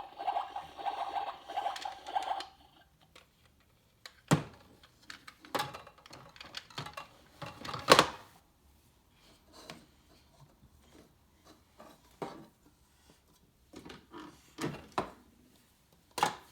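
A toy play kitchen's electronic sound effect, a pulsing buzzy tone that cuts off suddenly about two and a half seconds in. It is followed by scattered clacks and knocks of plastic toy parts being handled, the loudest about eight seconds in.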